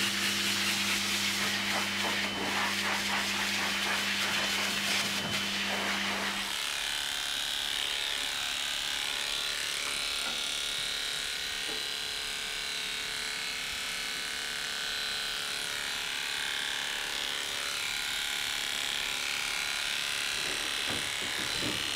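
Electric dog-grooming equipment running: a steady low hum with a hiss stops about six and a half seconds in, leaving a steady higher-pitched whir.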